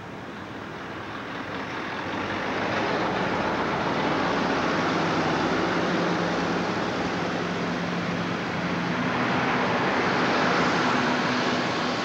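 Electric trains passing close by over a level crossing, a steady rumble of wheels on rails that swells over the first two or three seconds and then holds, with a faint low hum underneath.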